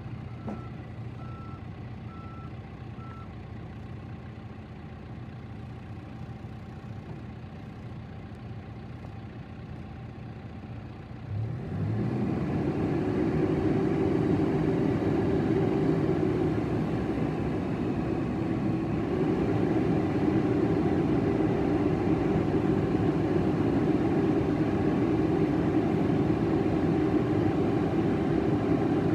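John Deere 310SK backhoe's four-cylinder diesel engine idling, with its backup alarm beeping about once a second for the first few seconds. About twelve seconds in the engine is throttled up and runs steadily at high revs, dipping briefly and then picking up again.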